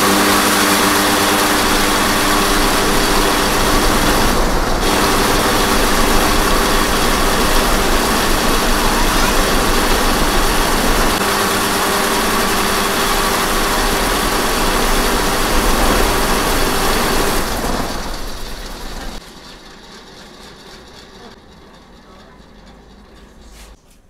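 Electric angle grinder driving three ceiling-fan blades at full speed, running loud and steady. The owner puts the noise down to a worn grinder bearing. It is switched off about 17 seconds in and dies away as the blades coast down.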